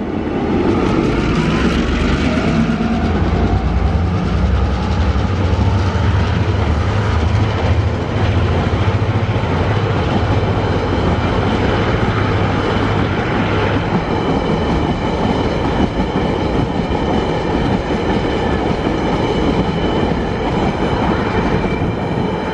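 Diesel locomotives of an empty ore train running past with a strong low engine drone, giving way after about 13 seconds to the steady rolling of empty ore wagons on the rails. Over the wagons come high, steady ringing tones from the wheels.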